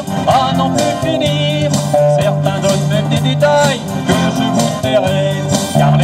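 Live pop band playing an instrumental passage between verses of a French chanson: electric bass, acoustic guitar and keyboard keep a steady beat under a wavering lead melody.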